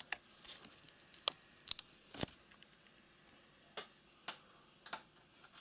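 Small Phillips screwdriver working screws out of a laptop's bottom case: a scatter of short, sharp metal and plastic clicks and taps at an irregular pace, the loudest about two seconds in.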